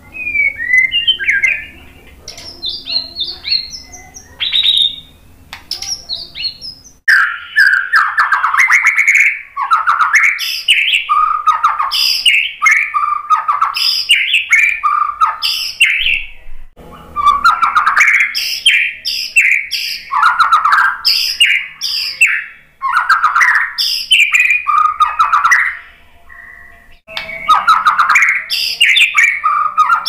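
White-rumped shama (murai batu) singing: scattered softer high notes at first, then from about seven seconds in a loud, fast, varied run of whistled and chattering phrases, broken by two short pauses.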